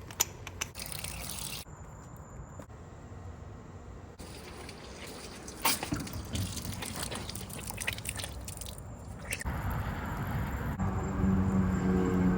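Water trickling and dripping through a drain, with scattered clicks and knocks. About eleven seconds in, a steady machine hum starts up.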